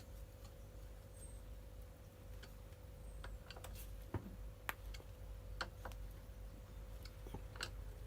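Faint, irregular clicks and light taps of small parts and hand tools being handled on a strimmer's plastic housing. A steady faint hum sits underneath.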